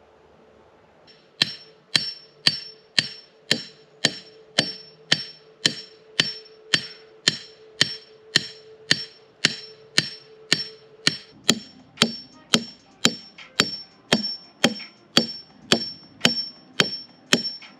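Hammer blows driving a stake for a concrete footer form, about two ringing strikes a second. They start about a second and a half in and keep an even pace, and the lower part of the ring changes pitch about eleven seconds in.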